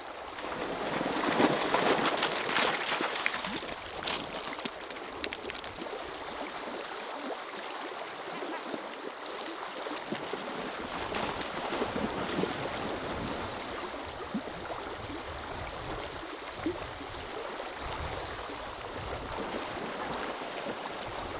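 Steady rushing of a flowing river, a little louder for the first few seconds, with a few faint ticks over it.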